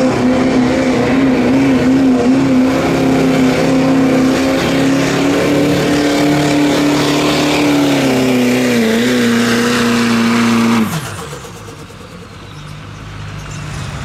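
Diesel pickup truck engine held at full throttle under load while pulling a weight sled, its pitch steady with slight wobbles. About eleven seconds in the throttle is cut and the engine note drops sharply, leaving a much quieter, low running sound.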